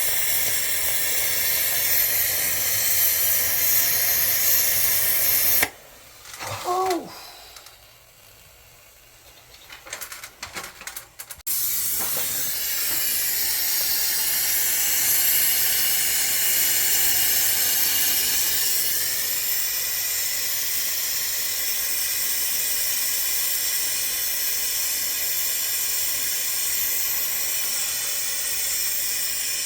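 Brazing torch flame hissing steadily at a copper refrigerant pipe joint. It is shut off suddenly about six seconds in, leaving a few seconds of near quiet with small clicks, then comes back on abruptly and hisses steadily again.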